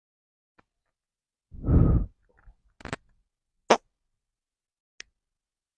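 A single low, buzzy fart lasting about half a second, about a second and a half in. It is followed by a few sharp, separate clicks.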